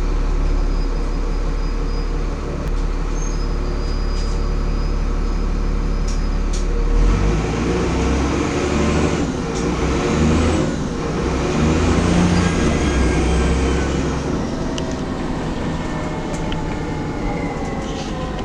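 Dennis Trident double-decker bus's diesel engine heard from on board: it runs steadily, then about seven seconds in it picks up under acceleration and a high turbo whistle rises and falls with it, before the engine eases off near the end.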